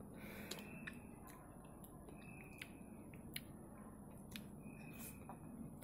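Faint, scattered wet clicks of a baby sucking on a lollipop, with a few short, faint high squeaks over quiet room tone.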